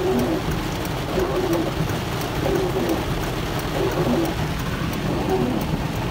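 Heavy rain beating on a moving car's windshield and roof, heard from inside the cabin as a steady hiss over a low road rumble. Short, low wavering tones recur about once a second over it.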